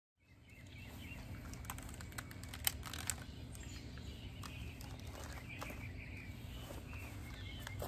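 Outdoor ambience: birds chirping over a steady low rumble, with a couple of sharp clicks about three seconds in.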